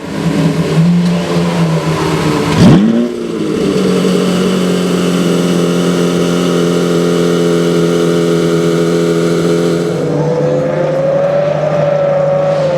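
Lamborghini Centenario's 6.5-litre V12 idling, given one sharp throttle blip almost three seconds in that rises and falls quickly. About ten seconds in a higher tone joins, slowly rising and then easing off.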